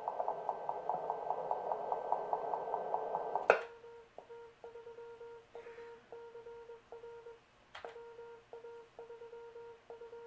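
Morse code (CW) tones from a homebrew 30-meter transceiver. A fast, raspy keyed signal gives way, after a sharp click about three and a half seconds in, to a cleaner, steady single-pitch tone keyed in slower dots and dashes.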